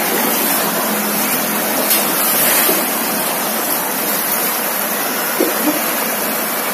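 Brown floodwater of a river in spate rushing fast over a submerged riverbank path and around its metal railings: a steady, loud rush of water.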